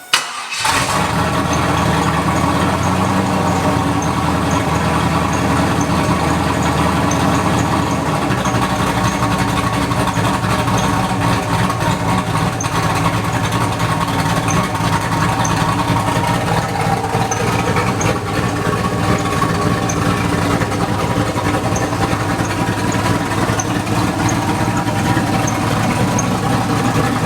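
Chevrolet Camaro's LS1 V8 catching on the starter and then idling steadily. The deepest part of the rumble drops away about eight seconds in as the idle settles.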